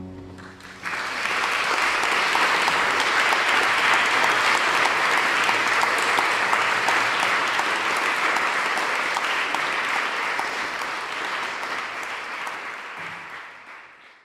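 The ensemble's final chord dies away, then an audience applauds from about a second in, steady clapping that fades out near the end.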